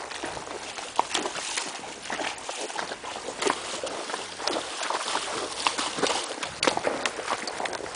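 Hooves of gaited trail horses walking, an irregular run of hoof falls.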